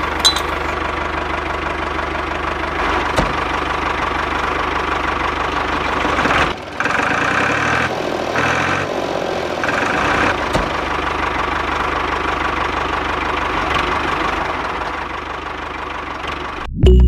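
Small electric motors of a home-made model tractor drilling rig running steadily with a buzzing whir. The sound drops out briefly about six and a half seconds in, changes for a few seconds, then runs steadily again.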